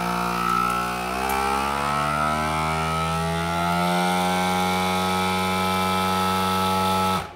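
Countertop vacuum sealer's pump running steadily as it draws the air out of a bag of raw burger patties. Its hum rises gently in pitch for a few seconds as the vacuum builds, then holds and cuts off abruptly near the end.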